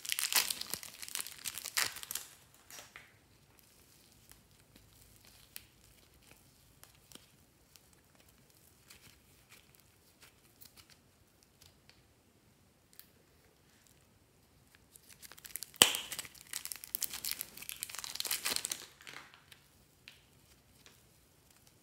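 Thin plastic bags crinkling as soft modelling clay is squeezed out of them by hand, in two spells of rustling: one at the start and one about three-quarters of the way through, with only faint handling ticks in between.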